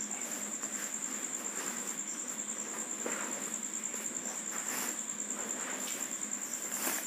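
A cricket chirring in a steady, high-pitched trill that keeps on without a break.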